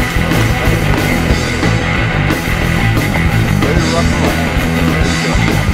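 Rock music with distorted electric guitar and a steady beat, with no singing.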